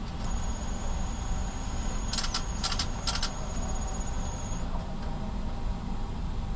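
Drive-through ATM drawing in a stack of checks: a thin high whine for about four seconds, with two short runs of clicking from the feed mechanism in the middle, over the low rumble of an idling car.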